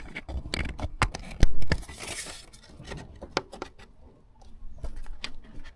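Clicks, knocks and scraping as the fan is handled and fitted back into the engine bay, with one loud knock about one and a half seconds in and a short rustling scrape just after.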